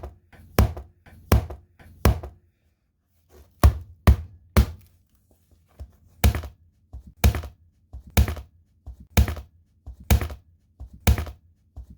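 A hatchet chopping at a tablet: about a dozen hard blows, roughly one a second, with a short pause a couple of seconds in.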